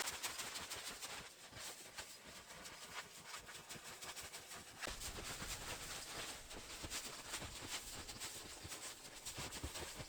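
Footsteps of a person walking through deep snow: many faint, irregular crunches.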